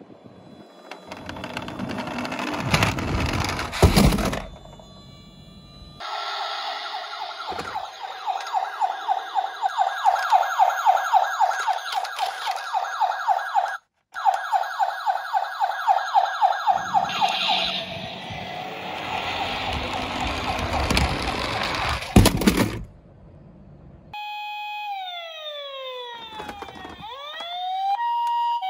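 Electronic siren of a battery-powered toy emergency vehicle, warbling in fast repeated pulses for about ten seconds with a brief break midway. Before and after it comes rough rolling and clattering with a few knocks, typical of toy car wheels on a hard surface. Near the end comes a falling multi-tone glide.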